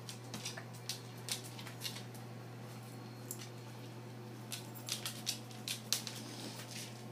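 Dog's and kitten's claws clicking and skittering on a hard floor as they scramble in rough play: irregular sharp taps, with a quicker, louder flurry about five to six seconds in. A steady low hum runs underneath.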